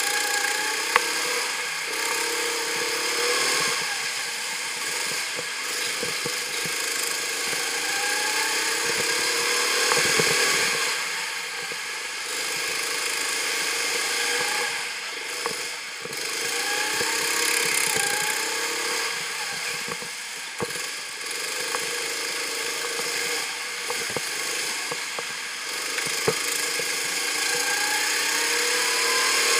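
Go-kart's small petrol engine, heard from the kart itself as it laps, rising in pitch four times as it accelerates and dropping back between. A sharp knock about a second in.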